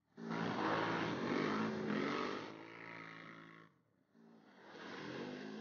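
Quad ATV engine revving hard while the machine churns through deep mud, with mud and water spraying off the tyres. It is loud for the first two seconds or so, dies away almost completely about four seconds in, then rises again.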